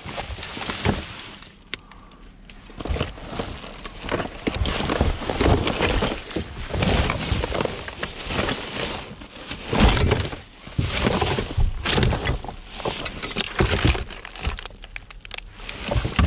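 Gloved hands rummaging through rubbish in a bin: plastic bags and packaging rustling and crinkling, with loose items knocking and clattering as they are shifted. There is a short lull about two seconds in.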